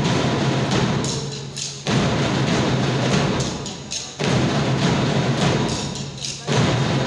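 Marching drums (snare-type drums and a bass drum) played together in loud phrases. Each phrase starts abruptly and then fades, with new ones coming about every two and a half seconds.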